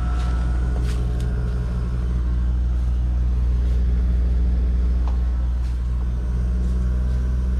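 Pioneer mini-split heat pump outdoor unit running steadily just after start-up, a low even hum from its compressor and fan with a few faint ticks. It is cooling, and the refrigerant lines at its service valves are turning cold.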